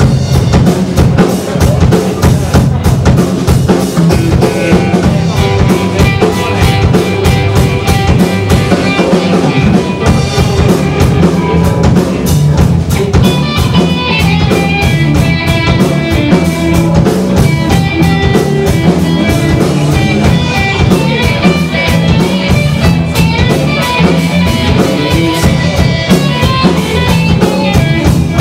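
Rock band playing instrumental blues rock: drum kit keeping a steady beat under electric guitar and bass guitar. The guitar lines come through more clearly in the second half.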